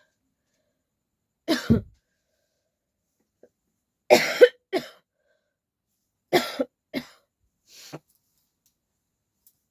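A person coughing in short fits of two or three harsh coughs each, a couple of seconds apart; the last fit is faint.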